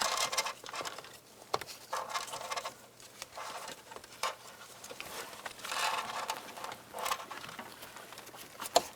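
Wire being pulled through a grommet opening into the vehicle cab: rustling and scraping in several short bursts, with a sharp click near the end.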